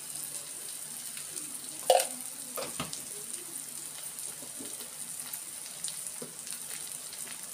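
Chopped onion and tomato with green chilli and curry leaves sizzling steadily in oil in a non-stick frying pan, the masala fried down. A sharp clink about two seconds in and a softer knock shortly after.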